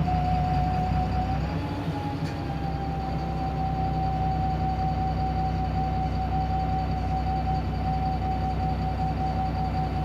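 Wright Pulsar single-deck bus running, a steady low engine drone under a steady high whine. The whine lifts slightly in pitch about two seconds in while the low drone briefly dips, then both hold steady.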